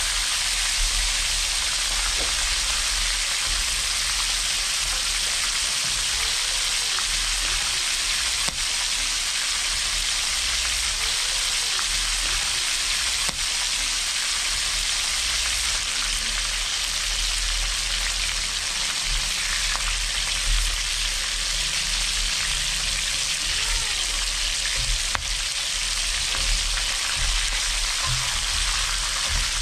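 Food frying in a pan, sizzling steadily with a few faint pops.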